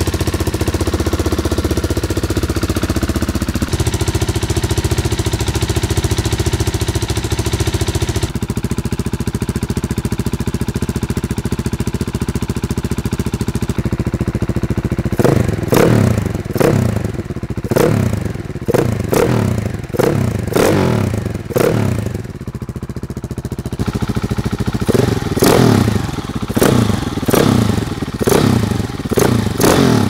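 KTM 690 SMC R single-cylinder engine, breathing through a Tekmo titanium header and Arrow titanium silencer, idles steadily, then is blipped over and over in quick, short throttle stabs from about halfway through, with a short pause between two runs of blips. The engine is cold, so it is not revved very hard.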